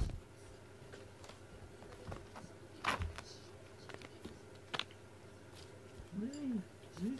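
Soft taps and rustles on a carpet from a cat playing with a string, then two short, low calls from the cat near the end, each rising and then falling in pitch.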